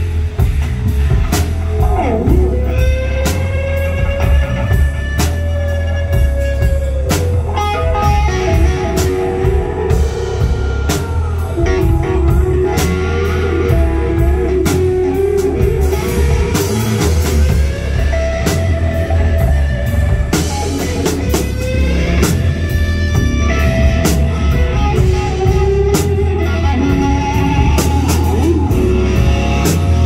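Live rock band playing at full volume: electric guitar holding long notes and bending them, over bass guitar and a drum kit with steady hits.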